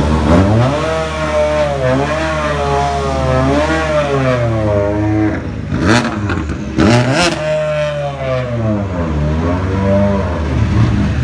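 Rally car engine revving hard, its pitch climbing and dropping again and again through gear changes and lifts. A few sharp bangs come about six and seven seconds in.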